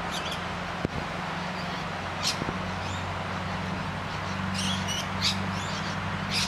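Adelaide Metro 3000-class diesel railcar running with a steady low engine hum as it rolls slowly in toward the platform. Birds call several times over it, at about two seconds in, again around five seconds and near the end.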